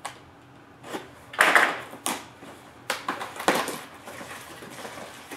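Utility knife slicing the tape on a small cardboard box, then the cardboard flaps being folded open: a run of short scratchy bursts of scraping and rustling, the loudest about a second and a half in.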